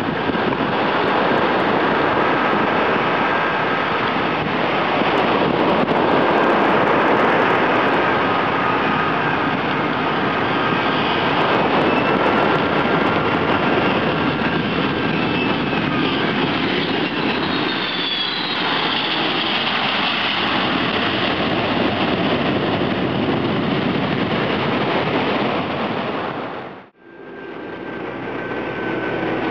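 Twin-engine jet airliner's engines running loud as it comes in low to land and passes close by, with a falling whine past the middle as it goes over. Near the end the sound cuts out abruptly and then builds again.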